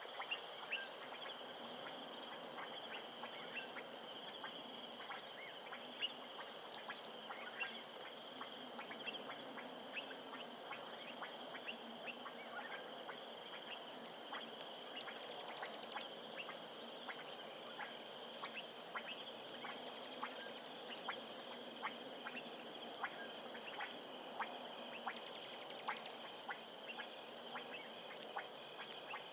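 Frogs and insects calling together: a steady high-pitched pulsing chorus, with many short sharp clicks scattered throughout and a faint low croaking now and then.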